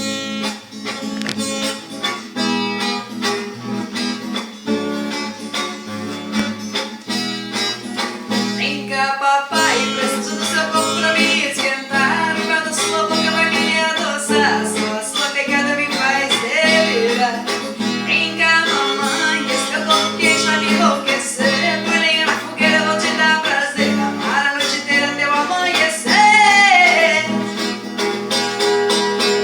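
A song with guitar accompaniment; a woman's voice comes in singing about nine seconds in.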